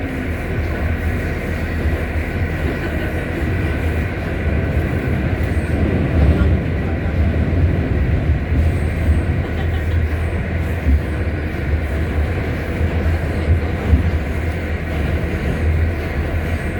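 R68 subway train running at steady speed: a continuous rumble of wheels on the track with a steady whine from the traction motors.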